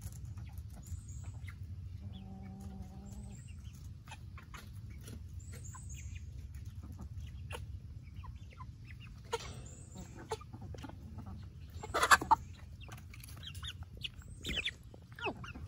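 Young hens clucking softly and calling in short bursts as they crowd around their water bucket, with one louder call about twelve seconds in.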